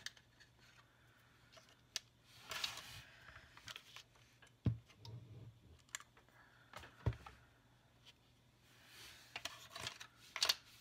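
Wooden craft sticks and a paper cutout handled on a tabletop: scattered light clicks and taps, short paper rustles, and two dull knocks about five and seven seconds in.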